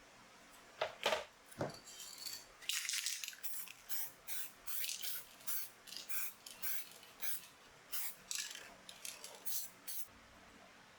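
Short hisses from an aerosol can of sublimating-wax scanning spray, about two a second and of uneven length, laying a matte coat on a shiny metal part so its reflections won't upset a laser scanner. A few knocks come about a second in.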